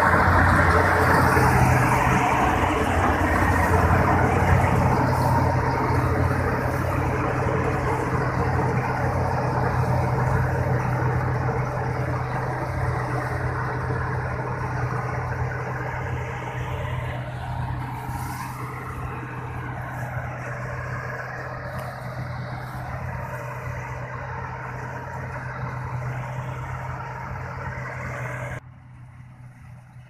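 New Holland combine harvester running as it cuts wheat: a steady low engine hum under the rush of the header and threshing gear. It is loud close by, fades steadily as the machine moves off, and drops suddenly near the end.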